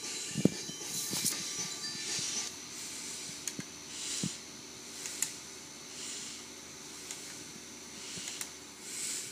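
Hissing rush from a video played back through a laptop's small built-in speakers, swelling and fading about once a second, with a few sharp clicks.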